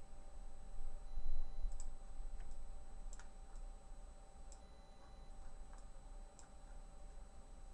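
A computer mouse clicking a few times, about four sharp separate clicks spread over several seconds, over a steady low hum.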